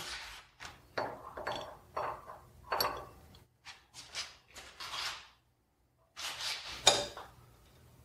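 Steel hold-down clamp parts (a strap clamp, step block and T-slot stud) being set and shifted on a milling machine's steel table: a series of short metal clinks and clunks. The loudest clunk comes about seven seconds in, after a brief pause.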